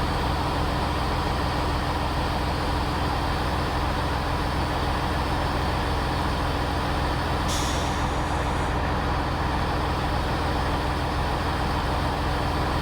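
Avanti West Coast Class 390 Pendolino electric train standing at the platform before departure, humming steadily, with a short hiss about seven and a half seconds in.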